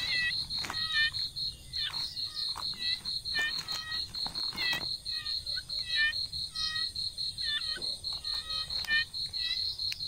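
Frogs calling in short, quick chirping notes, repeated in irregular clusters, over a steady high pulsing trill of an insect, about six or seven pulses a second.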